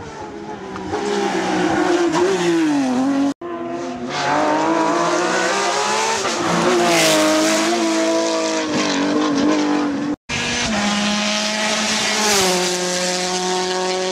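Rally cars at racing speed, three passes one after another: the engines rev hard, their pitch climbing and dropping through gear changes. One of the cars is a Porsche 911. The sound cuts off sharply twice where one pass gives way to the next.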